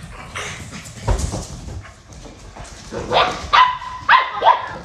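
Puppies playing: scuffling with a thump about a second in, then about four short, high yips in quick succession near the end.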